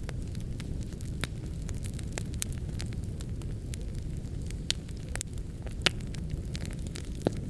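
Wood fire burning in a fireplace: a steady low rumble with scattered sharp crackles and pops, three louder pops in the second half.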